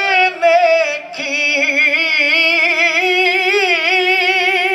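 A man singing an unaccompanied devotional naat into a microphone: a short phrase, then from about a second in one long held note, ornamented with quick wavering turns of pitch.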